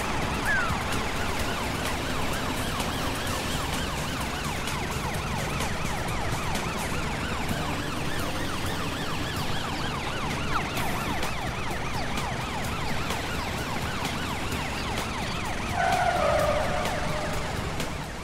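Emergency sirens of a cartoon police car and fire truck wailing with a fast, repeating rise and fall over steady vehicle noise, briefly louder near the end.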